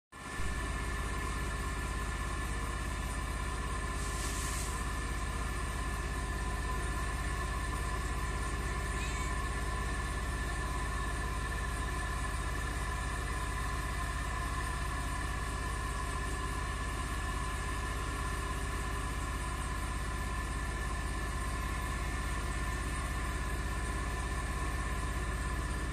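A steady, unchanging machine hum, like a motor running, with a brief hiss about four seconds in.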